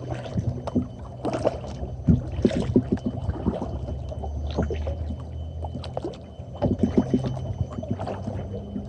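Kayak paddle strokes: the blades dip and splash in river water at irregular intervals, with drips in between, over a steady low hum.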